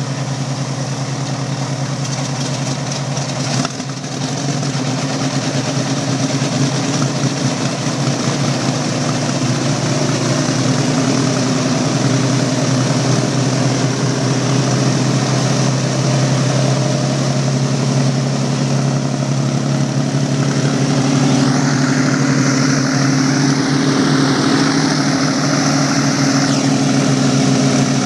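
Aero Commander L-26 twin-engine plane taxiing, its two piston engines and propellers running at low taxi power in a steady drone that grows gradually louder as it comes past.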